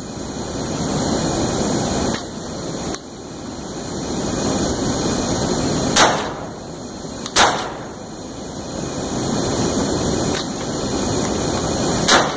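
8-gauge industrial shotgun fired three times into a kiln to knock loose build-up rings: a sharp shot about six seconds in, another about a second and a half later, and a third near the end. Between the shots, a steady rushing noise that swells and fades.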